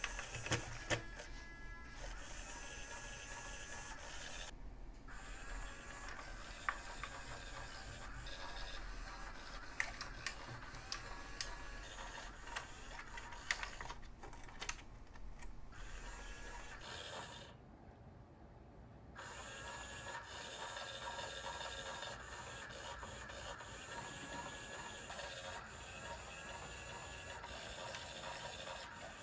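Motorized star-shaped cat toy whirring as its motor spins a feather around under the plastic cover, changing speed and stopping briefly about two-thirds of the way through. Sharp clicks come from a cat's paw striking the plastic.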